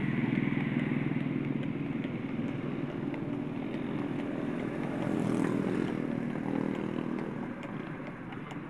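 Motorcycle engine running steadily at cruising speed, with road and wind noise. Faint clatter from a racing horse cart's hooves and wheels close alongside.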